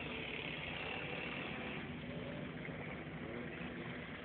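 K5 Blazer's engine running steadily, heard from inside the cab.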